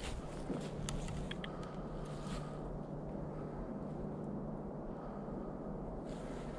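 A few footsteps crunching in dry leaves and pine straw in the first couple of seconds, then stillness under a steady low hum.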